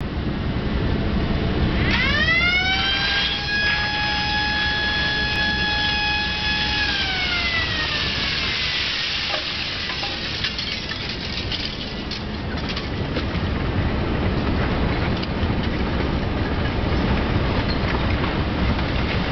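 SERAM S150.35E balanced scrap-handling crane at work: a high whine from its drive glides up about two seconds in, holds steady for several seconds, then glides back down, over a steady low machinery rumble. Later come scattered knocks and rattles of scrap metal shifting in the grab.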